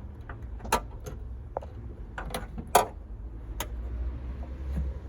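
A few sharp clicks and knocks from hand work on plastic dash and HVAC parts during evaporator core removal, over a low steady hum.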